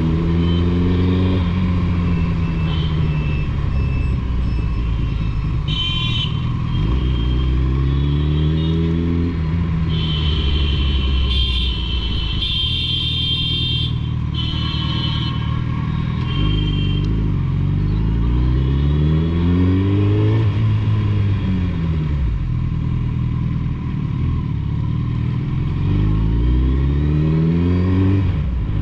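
Suzuki Hayabusa's inline-four through a Two Brothers Racing aftermarket exhaust, revving up and dropping back several times as the bike accelerates and eases off. Brief high-pitched tones sound near the middle.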